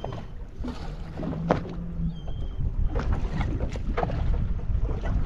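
Small waves lapping and slapping against a small boat's hull on open sea, with wind on the microphone and scattered light knocks. A low steady hum runs for about a second and a half near the start.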